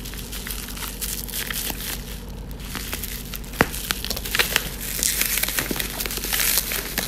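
Gift wrapping crinkling and crackling as a present is unwrapped by hand, in irregular handling noises that grow denser and louder in the second half, with one sharp snap a little past halfway.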